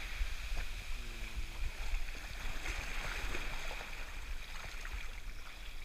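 Shallow surf washing up the sand and sloshing close by, with a steady low rumble underneath.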